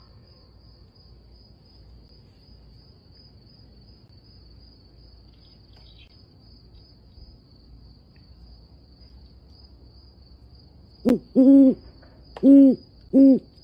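Great horned owl hooting its deep territorial call: four low hoots in quick succession near the end, the second and third held longest, after a long stretch of faint background hum.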